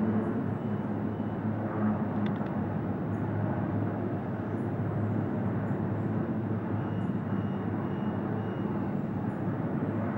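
Helicopter engine and rotor drone, a steady low hum with a rushing noise over it.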